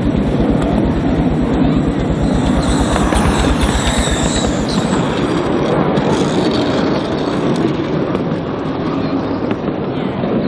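10¼-inch gauge 4-4-2 miniature steam locomotive running past with rhythmic exhaust beats, loudest as the engine goes by a few seconds in. Then the rumble and clatter of passenger carriages running over the rails.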